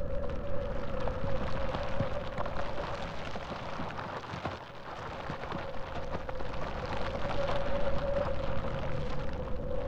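Ambient sound-art soundtrack: a steady droning tone with a dense, rain-like crackle over it. The tone fades down in the middle and comes back toward the end.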